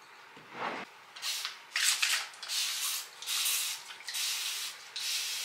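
Hand-held spray bottle spritzing hair: about six short hissing sprays, less than a second apart.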